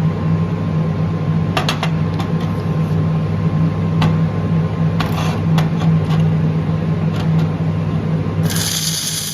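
Laser welding equipment running: a steady low electrical hum with sharp crackles a few times over, and a brighter hiss that comes in near the end.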